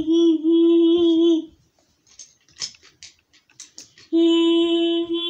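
A child's voice imitating a train horn with two long held notes: the first wavers slightly and stops about a second and a half in, the second starts about four seconds in. Light knocks and footfalls sound in the gap.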